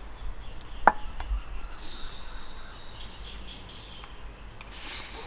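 Crickets chirring steadily. A single sharp clink sounds about a second in, and a short rustling scrape follows around two to three seconds.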